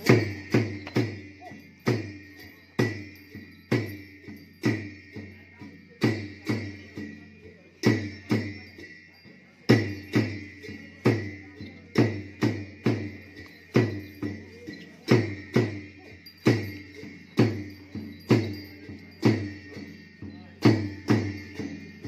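Drum and cymbals beaten together as the accompaniment of an Ache Lhamo dance, a low thud and a ringing clash on each beat, in an uneven rhythm of about one to two strikes a second.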